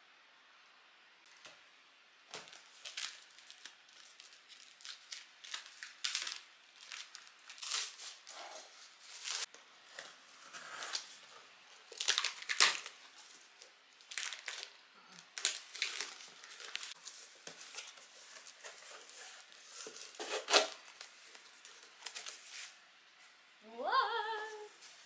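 Packing tape being slit and torn off a cardboard box, heard as irregular bursts of ripping and scraping with crinkling of cardboard and bubble wrap. A brief pitched squeal comes near the end.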